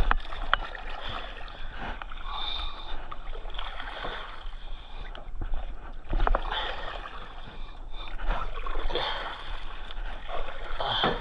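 Paddle strokes splashing in river water from a small paddled boat, with a few sharp knocks.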